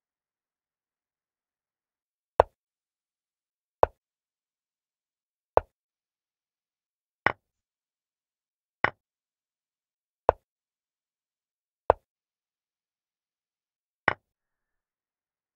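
Chess-piece move sound effects from a digital chess board: eight short wooden-sounding clicks, one for each move, about every one and a half to two seconds, with total silence between. Three of the clicks have a quick doubled knock.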